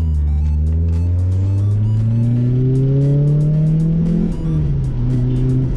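Honda Prelude's four-cylinder engine pulling under acceleration, its pitch rising steadily for about four seconds, then dipping and holding level.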